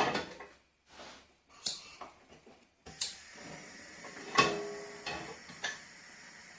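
Gas hob burner being lit under a steel saucepan: several sharp clicks and knocks from the control knob, the igniter and the pan on the grate, the loudest a little past halfway with a short metallic ring. A faint steady hiss of the gas flame runs under them from about halfway.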